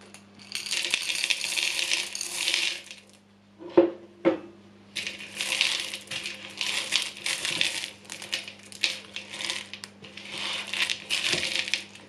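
Hard sugar-shelled Smarties candies poured into a bamboo mixing bowl: a dense rattling clatter lasting a couple of seconds, followed by two knocks. The candies then clatter against the wooden bowl in bursts as a silicone spatula folds them into stiff cookie dough.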